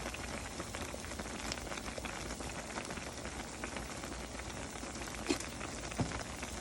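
Pot of collard greens and turkey necks simmering on the stove: a faint, steady bubbling hiss and crackle, with a couple of small clicks near the end.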